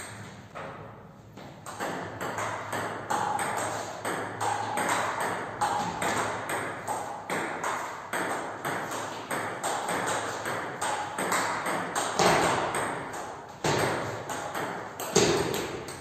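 Table tennis rally: the ball cracks off rubber-faced bats and bounces on the table in a quick, even rhythm of about two hits a second, each with a short ping. One bat is faced with Yinhe Jupiter II Soft rubber, driven in forehand topspin.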